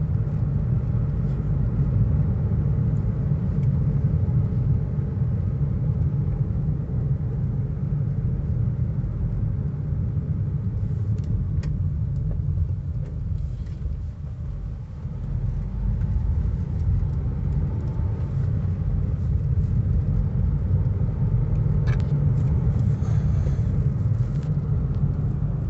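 Cabin road rumble of a 2019 Honda Amaze being driven, with a few faint knocks and rattles, which the owner puts down to the suspension and dashboard on small bumps.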